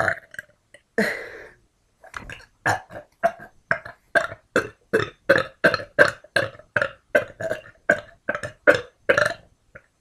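A person burping: one burp about a second in, then a long run of short, quick burps, about three a second, that stops shortly before the end.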